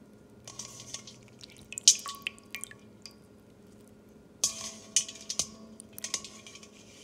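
Sweet potato fries being handled in cold water in a stainless steel bowl: splashing and dripping with light knocks against the metal. It comes in three spells, about half a second in, around two seconds in, and again from about four and a half seconds in.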